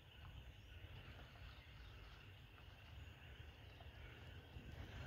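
Near silence: faint outdoor ambience with a steady low rumble and a faint, steady insect drone.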